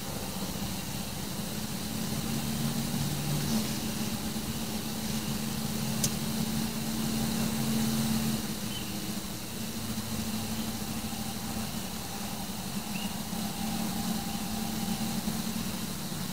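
Steady low mechanical hum over a faint hiss, with a single sharp click about six seconds in.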